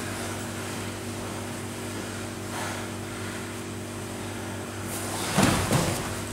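A steady electrical hum, then about five seconds in a short burst of thuds and rustling as two grapplers scramble and roll on a vinyl-covered mat.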